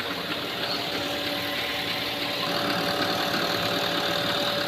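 Jeep Compass engine idling steadily after its engine repair.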